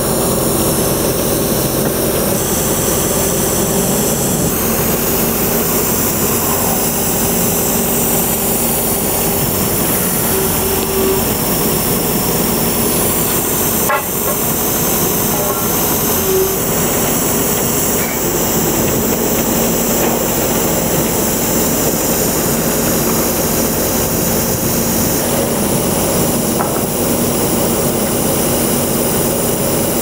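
Borehole drilling rig running steadily while its drill rods are being pulled out of the hole, with a sharp knock about halfway through.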